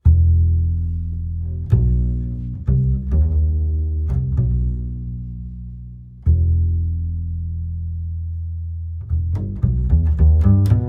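Background music of low plucked bass notes, each struck sharply and left to ring and fade, with a long note from about six seconds in and a quicker run of notes near the end.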